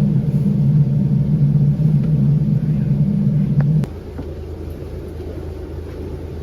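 Steady low vehicle engine rumble that drops abruptly about four seconds in to a quieter, steady hum.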